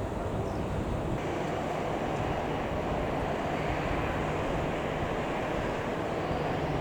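Jet airliner engines running, heard as a steady rushing noise, with a steady low hum that sets in about a second in.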